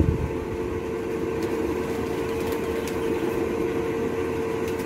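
Mars Hydro 4-inch inline duct fan running at high speed as its controller ramps it up to the top setting of 10: a steady hum with one clear, even tone.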